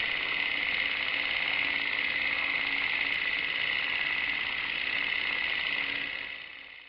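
Film projector sound effect: a steady mechanical whir and rattle with hiss, fading out over the last second.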